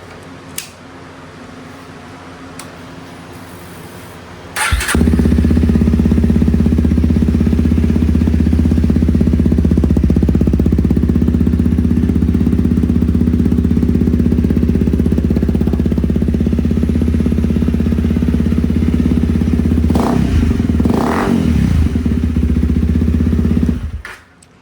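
Honda CRF300L single-cylinder four-stroke engine starting about five seconds in, then idling steadily and loudly through an aftermarket eBay muffler freshly repacked with fiberglass, before shutting off near the end. Even with the new packing the exhaust is still pretty loud.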